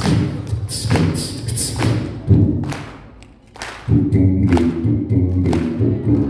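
Human beatboxing amplified through a handheld microphone: sharp vocal drum hits about once a second over low bass tones. It thins out briefly around three seconds in, then comes back full.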